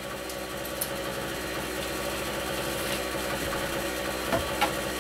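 A steady machine hum holding several even tones, with two light clicks near the end.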